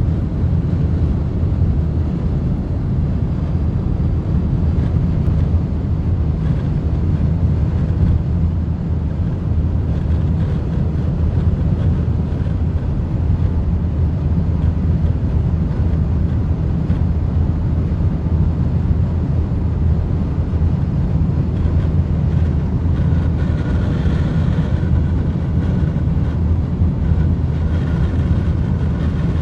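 Wind noise heard inside the cabin of a moving 2019 Skoda Octavia: a steady low rushing noise at speed. A faint whistle joins in a little over three-quarters of the way through and again near the end.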